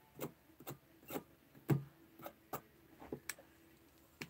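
Light metal clicks and taps, about ten of them at irregular spacing, from tweezers working the coils on a rebuildable vape atomizer.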